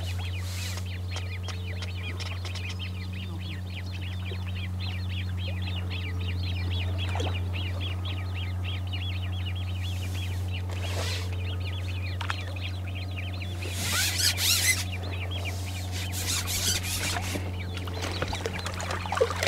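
Outdoor pond ambience: small birds chattering in quick chirps through the first half, over a steady low hum, with a few short bursts of noise in the second half.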